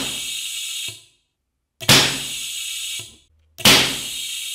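Butane-and-air pulsed detonation engine with a spring (Shchelkin spiral) in its acrylic tube, firing three times about two seconds apart. Each shot is a sharp, loud bang followed by about a second of hiss that ends in a small click.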